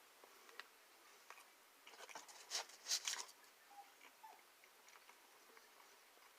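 A person chewing pepperoni pizza close to the microphone: faint wet mouth clicks, with a louder crackly stretch of biting and chewing about two to three seconds in.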